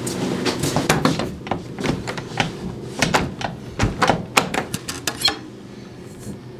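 Rapid, irregular knocks, clicks and rattles of a camera and hand bumping against a wooden door and its metal louvred vent, stopping about five seconds in and leaving only a low steady hum.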